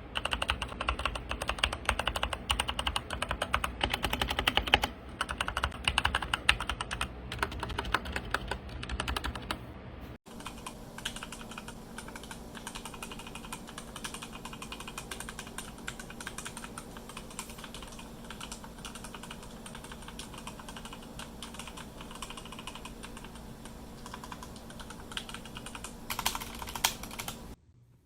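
Rapid, continuous typing on a mechanical keyboard, a dense stream of key clacks. It is louder for the first ten seconds, breaks off abruptly, then carries on more softly.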